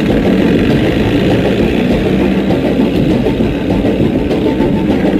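Outboard motor of a small inflatable boat running steadily at speed.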